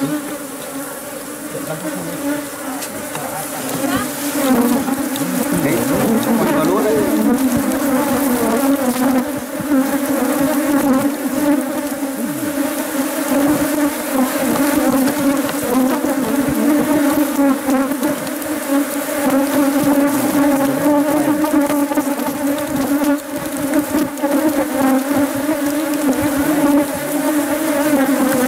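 A honeybee colony buzzing in an opened wooden hive box: a dense, steady hum that grows louder about four seconds in.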